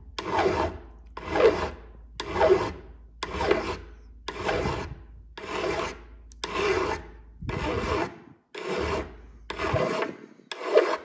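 Flat hand file rasping across the face of an AK magazine catch in steady strokes, about one a second, each stroke building and then cutting off sharply: metal being filed off a little at a time to fit the catch to the receiver.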